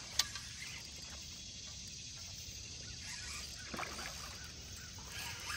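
Faint splashing of a hooked striped bass at the water's surface about four seconds in, over a steady low background hiss, with a single sharp click just after the start.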